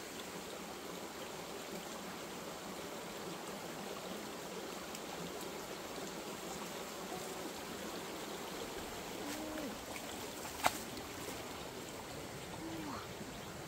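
Steady rushing of running water, like a small stream, with a single sharp click about ten seconds in and a couple of short, low calls near the end.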